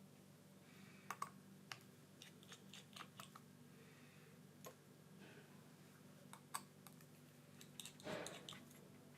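Faint scattered clicks and light taps of a precision screwdriver and tiny screws as the screws of the iPhone 14 Pro Max's internal plate are taken out, with a short scrape about eight seconds in, over a low steady hum.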